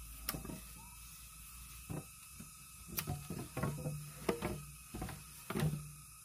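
A long bamboo pole being pushed through a cut hole in an upright bamboo post: scattered knocks of bamboo on bamboo, with a low rubbing hum as the pole slides through the hole about three seconds in and again near the end.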